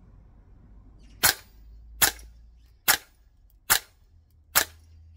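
Five semi-automatic shots from a Guns Modify HK416 A5 MWS gas blowback airsoft rifle, evenly spaced a little under a second apart, each a sharp crack with the bolt cycling, fired through a chronograph for a velocity test.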